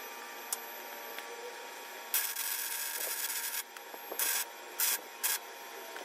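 Welding arc sizzling on a steel car frame: one run of about a second and a half, then three short bursts like tack welds.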